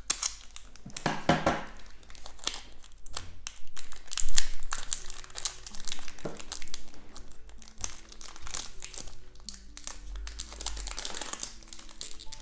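Foil wrapper of a Pokémon trading-card booster pack crinkling as it is torn open and handled, with soft background music of held notes coming in about five seconds in.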